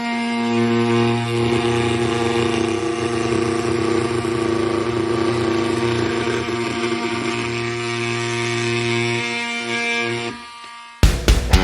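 Oscillating multi-tool running steadily with a high buzz, its blade cutting, then stopping about ten seconds in. Guitar music starts near the end.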